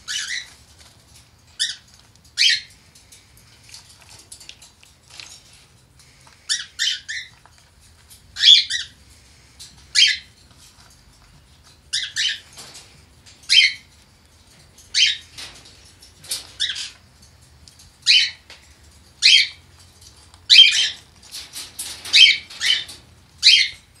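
Pelleted kitty litter rattling in a plant-pot drip tray as a cockatiel digs and flicks through it with her beak in search of food pellets. It comes as repeated short bursts every second or two, more frequent near the end.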